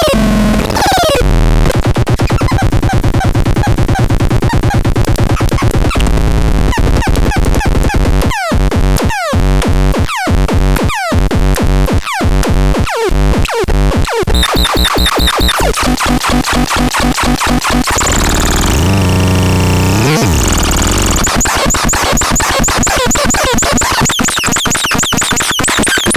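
Harsh electronic noise from the Hellbeltrach noise synthesizer: a dense, loud buzzing texture, broken in the middle by a stuttering run of short falling chirps, with a pitch sweep down into a low drone near the end.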